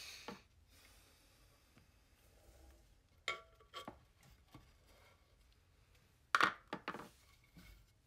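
Clicks and knocks of a potter handling a trimming tool and a square bat on a stopped pottery wheel. A few light clicks come about three to four and a half seconds in, and the loudest sharp knocks, a close cluster, come about six and a half to seven seconds in as the bat is worked loose from the wheel head.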